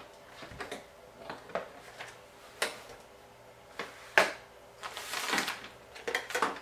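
Hard plastic parts of a Fisher-Price Sit-Me-Up floor seat being handled and pushed together: scattered light knocks and clicks, with one sharp click about four seconds in. Rustling comes in near the end.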